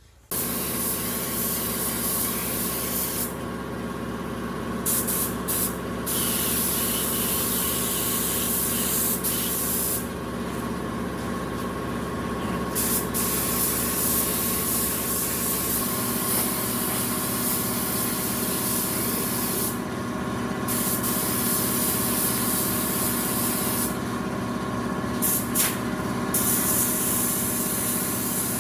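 A machine motor runs with a steady hum under a loud hiss. The hiss stops and restarts about four times.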